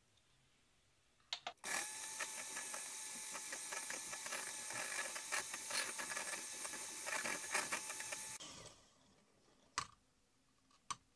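Electric hand mixer beating melted butter and icing sugar in a glass bowl until creamy. A few clicks as it starts about a second and a half in, then a steady motor whine for about seven seconds that stops, followed by a couple of sharp clicks near the end.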